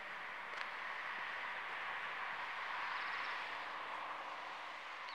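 Pintsch Bamag half-barrier level crossing clearing after a train: a steady rushing noise runs while the barrier booms rise, with a few short bird chirps near the end.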